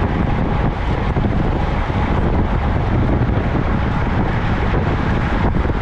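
Wind buffeting the microphone of a camera on a moving bicycle: a loud, steady rushing noise, heaviest in the low end.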